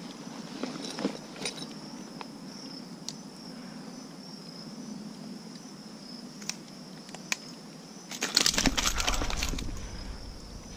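Small metal clicks and scrapes of fishing pliers and a lip-grip working the lure's hooks free from a landed barramundi. About eight seconds in, a louder scuffling burst lasts a second and a half.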